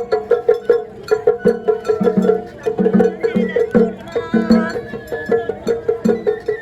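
Traditional festival music played live: quick, evenly repeated percussion strokes, several a second, keep a steady beat. A higher wavering melody rises over them in the middle.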